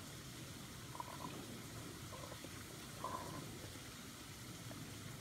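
Faint steady outdoor hiss with two brief, faint high chirps, about one second and three seconds in.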